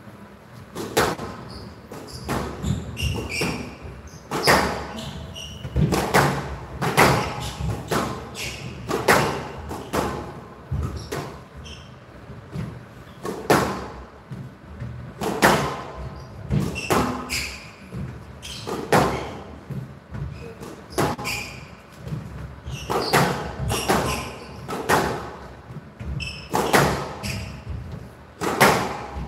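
Squash rally: the rubber ball cracking off rackets and the walls every half second to a second, with short squeaks of players' court shoes between the hits.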